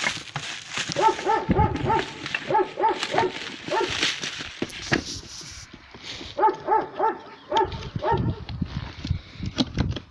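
A small dog yapping in quick runs of four or five barks, several times over, with plastic wrap crinkling as a cardboard box is handled.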